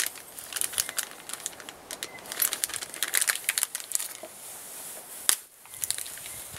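Small packet's wrapping crinkling and crackling as it is handled and opened, with one sharp snap about five seconds in.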